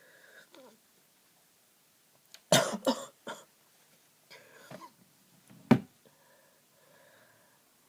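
A person with a congested head cold making loud, explosive bursts. The first comes as a double about two and a half seconds in, with a smaller one just after. Breathy gasps follow, then another sharp burst near six seconds and faint, wheezy nasal breathing.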